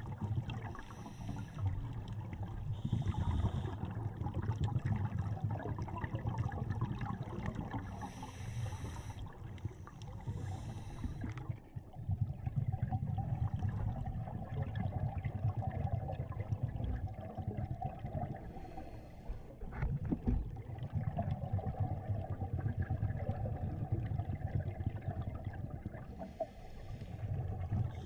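Underwater ambience: a steady low rumble of moving water, broken every few seconds by short hissing, bubbling bursts typical of a scuba diver breathing through a regulator.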